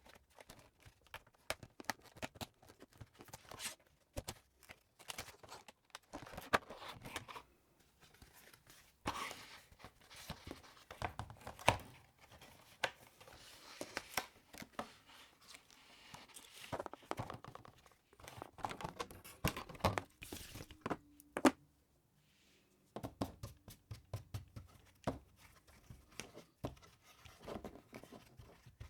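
A cardboard box and its packaging being handled and pried open, with irregular tearing, crinkling, scraping and short knocks.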